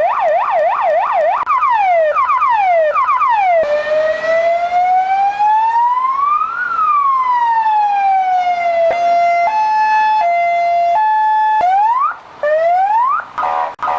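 Argentine ambulance's electronic siren cycling through its tones. It starts with a fast yelp, then slower rising sweeps, then one long wail that rises and falls, then a two-tone hi-lo switching less than once a second, and ends in rapid stuttering blasts.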